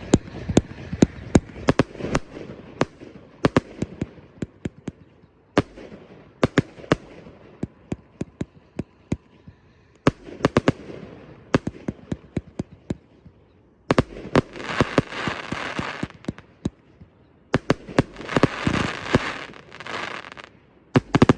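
A multi-shot 1.4G pro fireworks cake ('Light Up Your Night') firing: rapid runs of sharp shots and bursts with rumbling echoes, broken by brief pauses. In the second half come two long spells of dense crackle, the crackle effects that follow the peonies.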